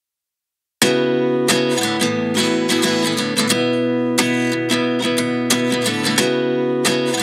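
Silence, then about a second in background music starts suddenly: a strummed guitar with a steady rhythm.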